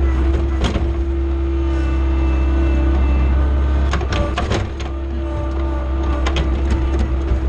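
John Deere skid steer's diesel engine running steadily with a constant whine over its drone, and a few sharp knocks, several of them close together about four seconds in.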